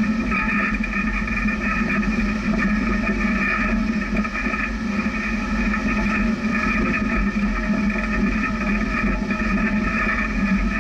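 Jeep engine and drivetrain running steadily at low speed, crawling over a rocky trail.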